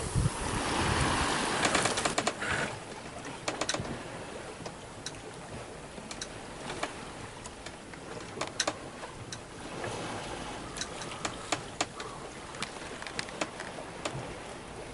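Sea water rushing and splashing along a sailboat's hull, loudest for the first couple of seconds, then a steadier wash with scattered light clicks and knocks.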